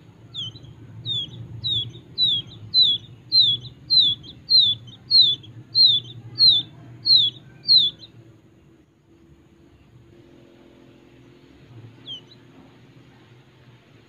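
Wild quail chick peeping: a run of about a dozen short, high chirps, each falling in pitch, evenly spaced a little under two a second and growing louder over the first few. The chirping stops about eight seconds in, with one more chirp near the end.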